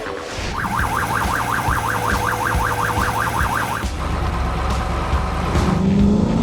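Cartoon siren sound effect: a fast warbling wail that wavers up and down about five times a second over a low rumble, stopping about four seconds in, after which a lower tone rises near the end.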